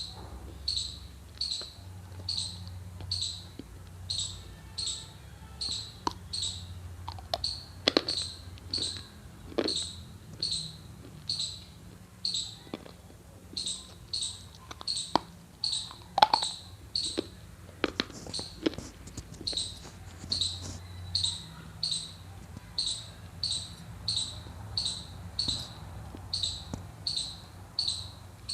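Dry multani mitti (fuller's earth) bitten and crunched, heard as a few sharp crunches scattered through the middle. Under it, a high chirp repeats about twice a second throughout, over a low steady hum.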